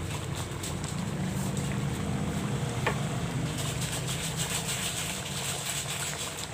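Chicken adobo sauce simmering in a pan, bubbling and sizzling with a fine crackle that grows louder about three and a half seconds in, over a steady low hum.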